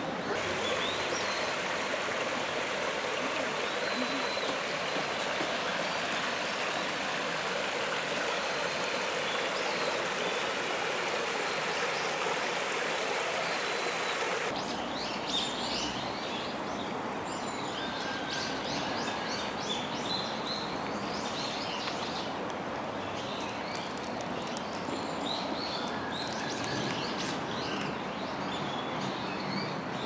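A shallow stream babbling steadily. About halfway through the sound changes abruptly: the water becomes softer and small birds chirp repeatedly over it.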